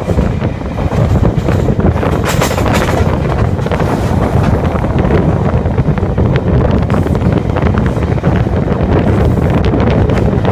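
Wind buffeting a phone microphone held at the open window of a moving V-set double-deck electric train carriage, over the train's steady rumble and rapid clicking from the wheels on the track. A brief louder rush of air comes about two seconds in.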